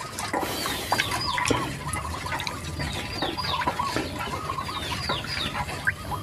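Chickens clucking, with short high falling peeps repeating throughout. Under them, a wooden stick stirs brown sugar water in a metal bowl and knocks against the side a few times.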